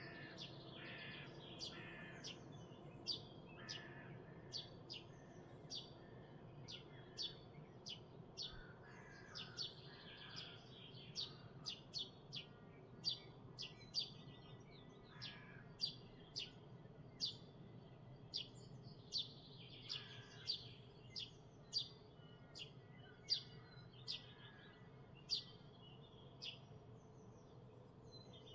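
Songbirds singing: short, sharp, high chirps repeated about once or twice a second, with softer warbled phrases from other birds now and then. A faint steady low hum runs underneath.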